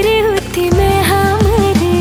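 Background music: an Indian film-style song, a bending melody over a steady rhythmic accompaniment.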